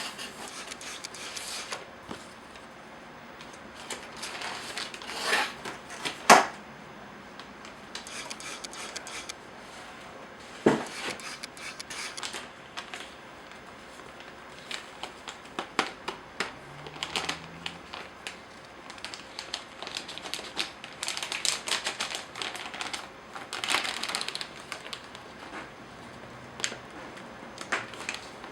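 Handling noises from work on a copier developer unit: an irregular run of clicks, taps and rustles, with sharp knocks about six and eleven seconds in.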